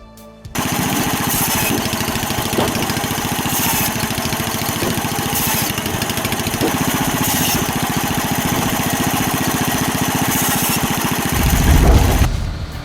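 Engine-driven machine running steadily with an even pulsing beat and short hissing bursts every second or two. Near the end it surges louder and lower, then drops away suddenly.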